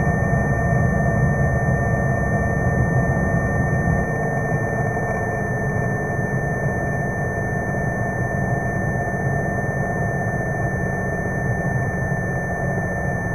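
A Spitfire's Rolls-Royce Merlin V12 running at low taxiing power, a steady rumble heard through the cockpit intercom, with a constant high tone over it. The low rumble eases a little about four seconds in.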